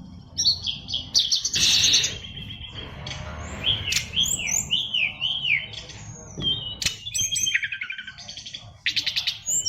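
A caged SRDC songbird singing a fast, varied song of chirps, down-slurred whistles and trills, its song packed with mimicked phrases. A brief rustling rush about a second and a half in.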